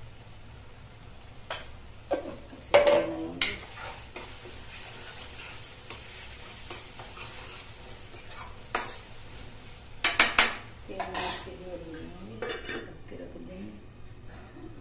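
Onion-tomato masala sizzling in a black kadai while a metal spatula stirs the spices in, scraping and knocking against the pan. Sharp metallic clinks stand out about three seconds in and again around ten seconds in, and a steel lid is set on the pan near the end.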